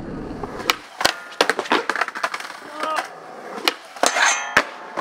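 Skateboard sounds: wheels rolling on asphalt, then a run of sharp wooden clacks of the board popping and striking. Near the end the board scrapes along a metal handrail and lands with a sharp clack.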